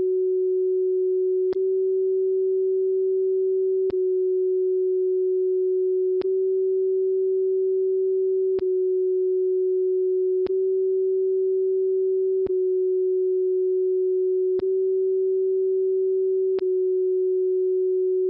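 Steady CW beat note from the WWV 10 MHz carrier received on an Icom IC-7300, a single pure tone a little under 400 Hz. A brief click about every two seconds marks the radio switching between CW and CW-R. The reference oscillator is at its factory default setting, so the tone differs slightly between the two modes: the sign that the TCXO has drifted off frequency.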